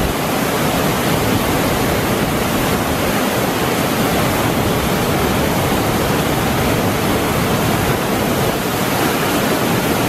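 Water of the Seine rushing and churning through and below the Barrage de Poses weir: a loud, steady rush of white water.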